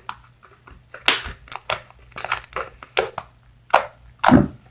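Fluffy slime made with glue and shaving foam being squeezed and kneaded by hand, giving a quick irregular run of crackly squelches and pops, with a heavier squish near the end.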